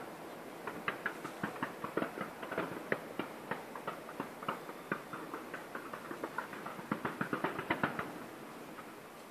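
Dense, irregular crackling of distant fireworks: many short sharp pops, several a second, that thin out and fade near the end.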